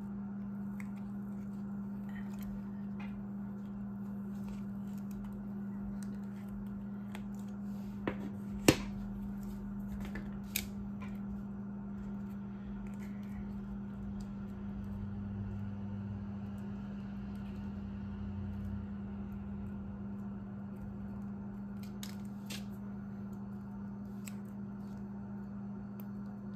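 Cured resin coasters being worked out of flexible silicone molds by hand: soft peeling and rubbing with scattered small clicks, and one sharp click about nine seconds in, over a steady low hum.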